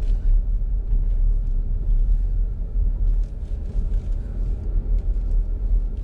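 Steady low rumble of a car's engine and road noise heard inside the cabin as it drives slowly along a road, with faint scattered ticks over it.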